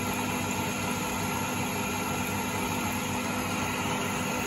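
Myford ML-7 lathe running under power feed, its tool taking a fine turning cut along a steel hub: a steady machine hum from the motor and drive.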